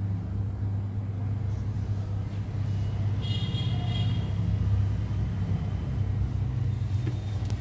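Hot air rework station blowing steadily onto a mobile CPU to melt its reballed solder balls, heard as a low, even hum. A faint high whine comes in briefly about three seconds in.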